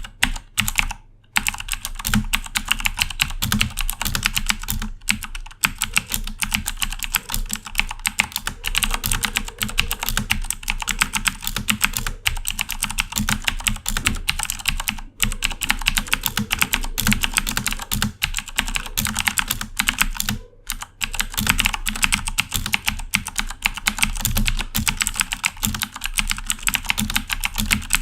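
Corsair K70 mechanical keyboard with clicky Cherry MX Blue switches being typed on fast and continuously: a dense run of sharp key clicks. There are brief pauses about a second in and again about twenty seconds in.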